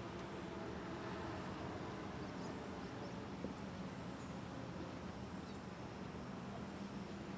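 Steady low outdoor background hum, with a few faint short high chirps and a single small click about three and a half seconds in.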